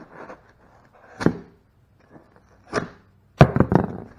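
Cardboard box being cut and torn open by hand: three short ripping bursts, the last and loudest a ragged run of rips near the end.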